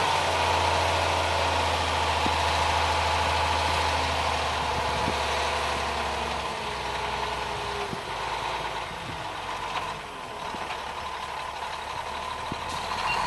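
Sand delivery truck's engine running steadily as it spreads its load, growing fainter about halfway through as it moves away.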